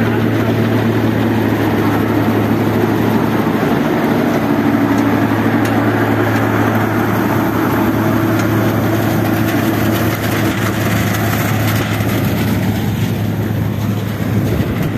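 John Deere 5310 tractor's three-cylinder diesel engine running steadily under load, driving a straw reaper, with a constant low engine note and the machine's clatter on top.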